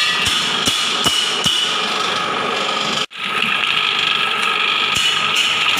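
Palm-sugar cooking and crystallising machine running, its motor-driven stirrer turning in the steel pan with a steady mechanical hum and a regular clicking about two to three times a second. The sound cuts out for an instant about three seconds in, then the steady running resumes.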